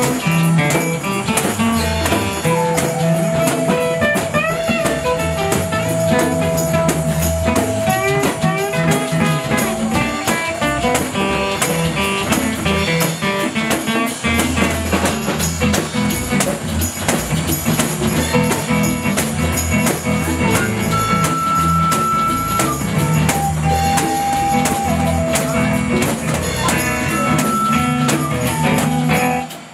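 Live band playing an instrumental break: a flute plays a melody with long held notes over a strummed acoustic guitar, electric bass and a shaken tambourine. The music drops off abruptly at the very end.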